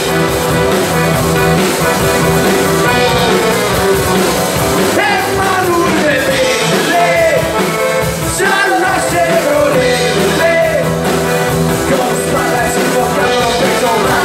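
Live band music with accordion and guitars playing a steady, loud, rock-tinged folk tune, and a singer's voice gliding in and out over it, stronger from about five seconds in.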